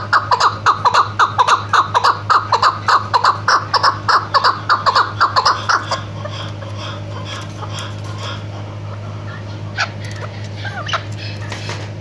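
Female chukar partridge calling in a rapid, even series of about four or five calls a second, which stops abruptly about six seconds in. A few softer calls follow near the end.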